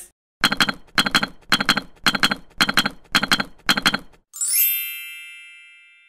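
Short intro jingle: seven evenly spaced percussive hits, about two a second, then a bright chime that rings out and fades.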